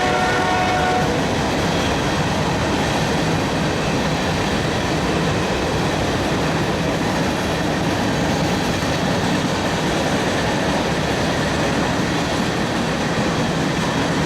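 A train horn's chord cuts off about a second in, then a train's cars roll past with a steady rumble and rattle.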